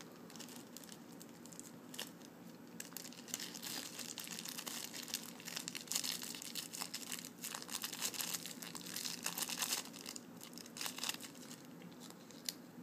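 A small clear plastic bag and paper wrapping crinkling and rustling in the fingers while a small round lens part is unwrapped. The crackling is sparse at first, busiest in the middle, and eases off near the end.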